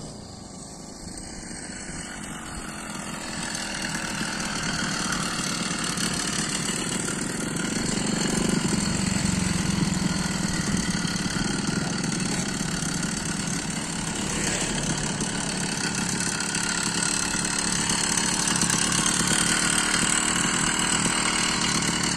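BT80 two-stroke engine on a motorized bicycle running, getting louder over the first several seconds and then running steadily.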